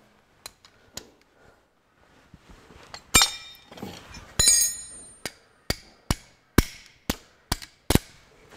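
A worn half-inch AF spanner clicking and clinking against the nuts and cast-iron housing of the diesel engine's front cam support as it is fitted and worked on the nuts. Two clinks ring on a moment, then comes a run of about seven sharp clicks, roughly two a second.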